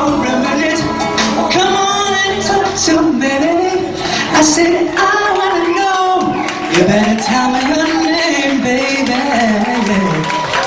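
Male vocalist singing into a handheld microphone over backing music, his voice sliding and bending through long held notes.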